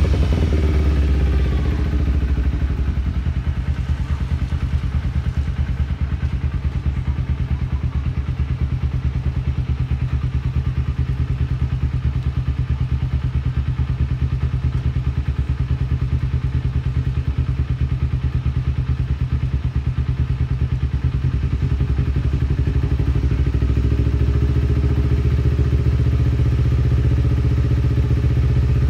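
Carburetted Kawasaki Ninja 250's parallel-twin engine running through a Two Brothers aftermarket exhaust. The revs fall back from a throttle blip about a second in, and it then idles steadily with an even exhaust pulse.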